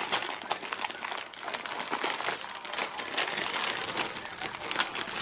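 Clear plastic bag crinkling and rustling as hands pull at it to open it: a dense run of quick crackles.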